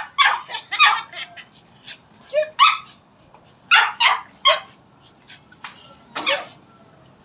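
Small dog barking in play: a dozen or so short, high yaps in irregular clusters, with brief pauses between them.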